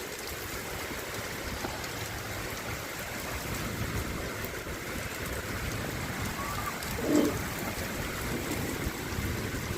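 Steady patter of rain with a little pea-size hail falling. About seven seconds in there is a short, louder voice-like sound.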